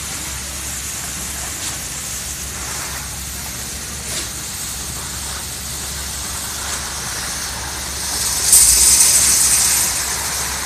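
Concrete pump running steadily while wet concrete is pumped through its hose onto a slab, with a constant hiss over a low hum. A louder hissing surge about eight and a half seconds in lasts over a second.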